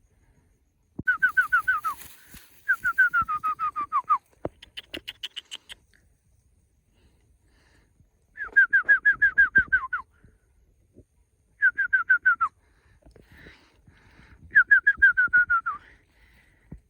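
A bird calling in repeated bouts, each a quick run of short clear whistled notes, about eight a second, that slide down in pitch and drop lower at the end of the run. There are five such runs, with a shorter, higher-pitched run in between, and faint rustling and knocking underneath.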